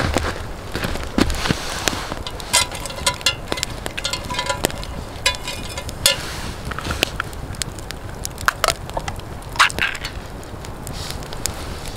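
Campfire of charred logs crackling, with many sharp pops and snaps over a steady hiss. A metal cooking pot is set down on the logs partway through.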